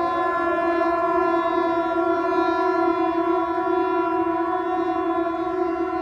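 Civil defence warning siren sounding one long steady tone, with a faint rising whine in the first second as it winds up to pitch: the tsunami alarm going off.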